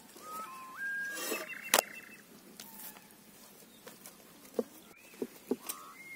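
Birds calling with short whistled notes that step and glide in pitch. One sharp click about two seconds in and a few soft taps later come from dough being laid and pressed into a cast-iron pan.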